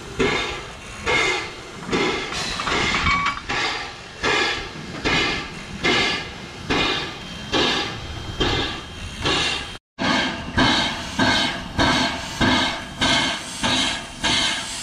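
Steam locomotive exhaust chuffing in a steady, even rhythm of beats, with a brief break about ten seconds in.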